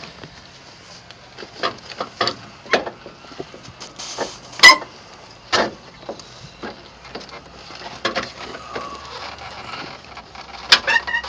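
Scattered knocks and plastic clicks as a truck's dash pad is worked back into place over the dash speakers, with one loud sharp crack a bit under five seconds in and a brief squeak among clicks near the end.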